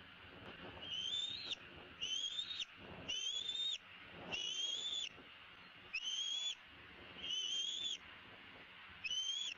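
Juvenile bald eagle giving a series of seven high, thin whistled cries, each about half a second long and rising slightly, roughly one a second.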